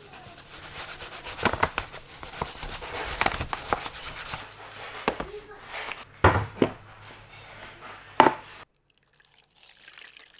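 Kitchen work sounds: light clicks, knocks and rubbing of things being handled, with a few sharper knocks. The sound stops abruptly near the end.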